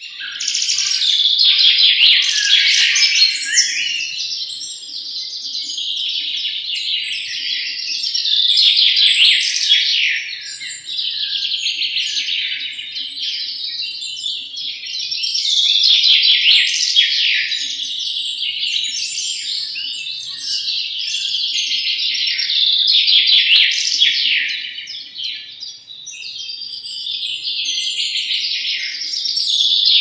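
European goldfinches singing: a continuous, rapid twittering of short chirps and trills that swells and eases every few seconds. It starts abruptly.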